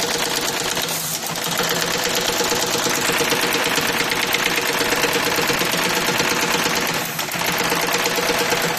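High-speed brush tufting machine running, its tufting head rapidly setting bristle tufts into plastic cleaning-brush blocks: a fast, even mechanical rattle with a steady hum under it, easing briefly about a second in and again near the end.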